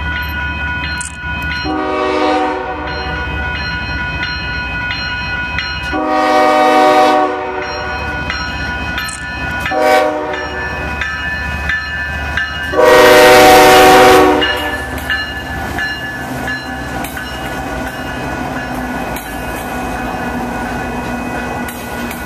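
Canadian Pacific GE Evolution-series freight locomotive sounding its multi-chime air horn in four blasts, long, long, short, long (the standard grade-crossing signal), the last blast the loudest. The locomotives then pass and a string of tank and hopper cars rolls by with a steady rumble.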